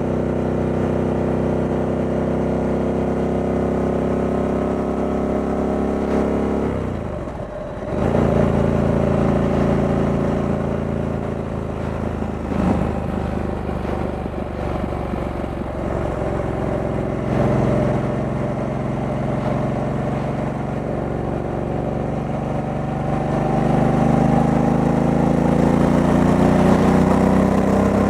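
Stock 2023 Harley-Davidson Sportster S's V-twin engine running under way. About seven seconds in the note drops briefly, then comes back louder, and near the end it rises in pitch as the bike accelerates.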